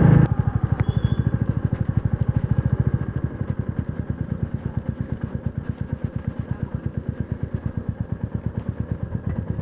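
Motorcycle engine idling with an even, rapid pulsing beat, a little louder for the first few seconds and then steady.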